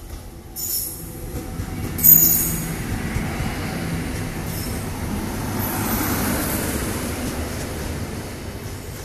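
Indian Railways electric locomotive and its passenger coaches passing close by at track level. There are short high-pitched squeals about half a second and two seconds in, and the loudest moment comes as the locomotive goes by just after two seconds. After that the coaches keep up a steady rumble and clatter, swelling a little around the middle.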